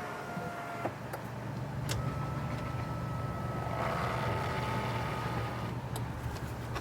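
A 2017 Ford F-150 running at a steady idle, with a couple of light clicks about one and two seconds in.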